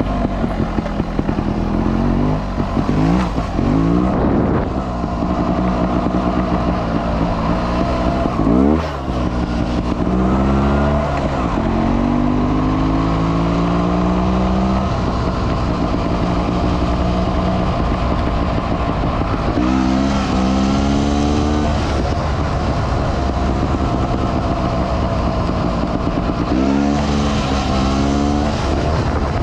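Sherco trials motorcycle engine under way, the revs climbing in several separate pulls of the throttle, with a brief sharp dip about a third of the way through and steadier running in between.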